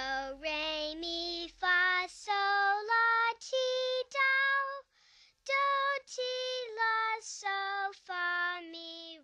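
A child singing a slow melody alone, with no instruments, each syllable held as a separate note with short breaks between them.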